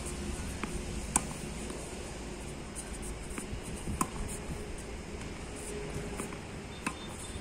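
Tennis ball hit with a racket and bouncing on a hard court: a few sharp pops, the loudest about one and four seconds in, over a steady low hum.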